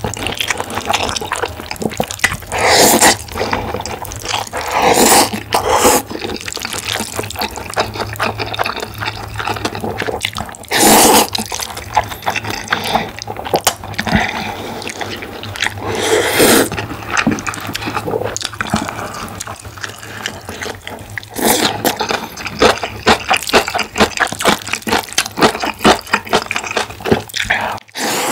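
Close-miked wet food sounds from jajang ramyeon, noodles in black bean sauce: repeated short bursts of liquid, squelching noise, with a quick run of small clicks near the end.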